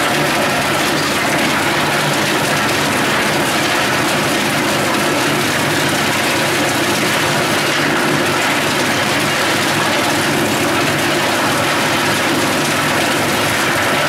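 Teknamotor 350 EB wood chipper running with its vibrating feed conveyor, which rattles as it shakes a load of wood offcuts along: a steady, loud mechanical din.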